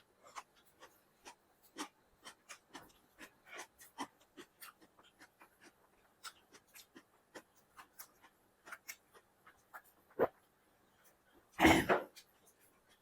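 Close-up eating sounds: wet mouth clicks and chewing, many small ticks a second or so apart, with a sharper click about ten seconds in. A loud, short burst near the end, about half a second long.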